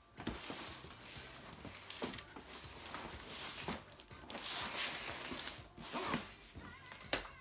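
Packing tape on a cardboard box being slit with a blade and torn, in several long rasping strokes, with cardboard scraping and rustling as the box is handled. One sharp knock comes just before the end.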